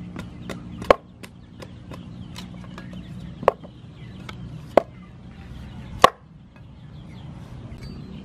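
Large kitchen knife chopping a green pumpkin on a round wooden chopping board: four sharp knocks of the blade striking the board at uneven intervals, with fainter taps of the blade between them.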